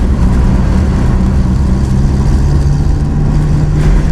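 Car being driven, heard inside the cabin: steady engine hum over low road rumble.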